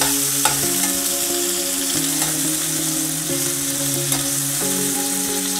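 Soya chunks sizzling as they fry in hot oil in a kadhai, stirred and scraped with a steel slotted spatula, with an occasional knock of the spatula on the pan. The chunks are being roasted well until they turn crunchy.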